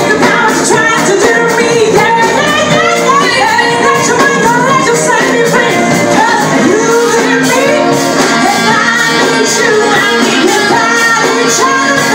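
Loud live band music with a woman singing lead into a microphone over electric guitar and hand percussion.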